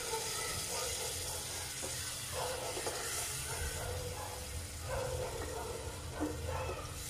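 Tomato, onion and garlic masala sizzling and hissing in a pot as water is poured in and stirred with a wooden spatula.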